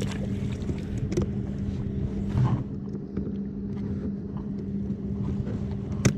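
A steady, even engine drone. A few sharp clicks and knocks sound over it, the loudest just before the end.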